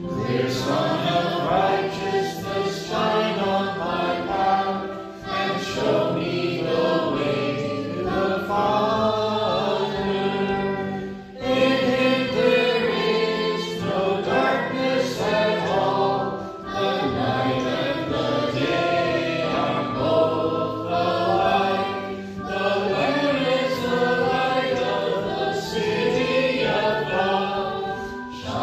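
A small group of mixed men's and women's voices singing a hymn together in phrases, accompanied on piano.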